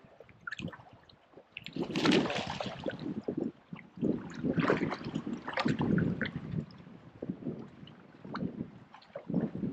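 A hooked fish splashing at the water's surface close to the boat, in irregular bursts of splashing, the loudest about two seconds in.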